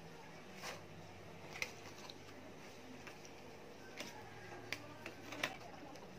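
Faint handling sounds: about six light taps and clicks from a pen, paper and a phone being handled on a painted tank, over a low steady hum.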